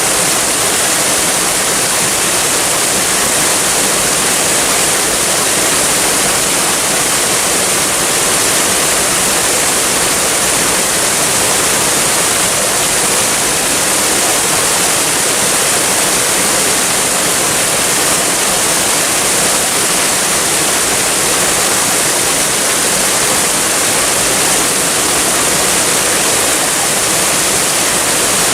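Waterfall, water falling and rushing in a steady, unbroken hiss.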